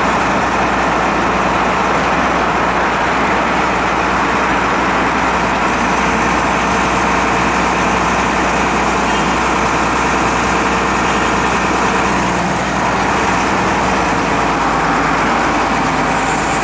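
A heavy engine running steadily: a constant, even mechanical drone that holds at one level, dipping slightly about twelve seconds in.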